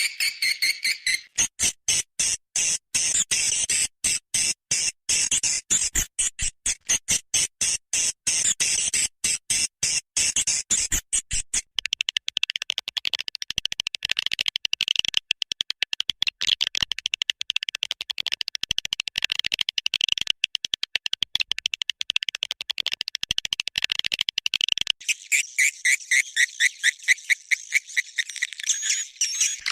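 Recorded swiftlet calls played as a swiftlet-house lure sound: high, rapid trains of chirping pulses, becoming a dense continuous twitter about twelve seconds in, then breaking into quick pulses again near the end.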